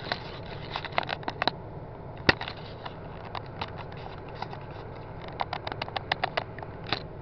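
Handling noise from a small handheld camera: irregular clicks and taps from fingers on the camera body, bunched in the first second and a half and again from about five to seven seconds in, with one sharp tap a little after two seconds. A steady low hum runs underneath.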